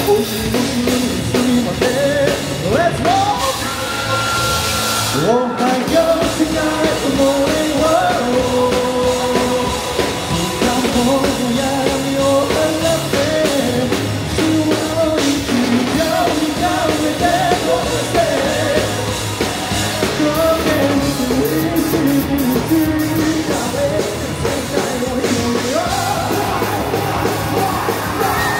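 Japanese rock band playing a fast rock song live, a lead singer over electric guitar, bass and drums. The band drops out for a moment about five seconds in, then kicks back in.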